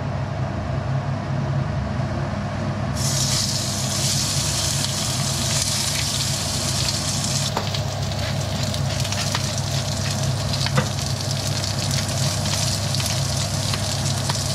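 Squid strips sizzling in hot oil in a frying pan, the sizzle starting loudly about three seconds in as the squid goes in and easing a little halfway through, over the steady hum of a kitchen extractor fan. A few light clicks and taps are heard along the way.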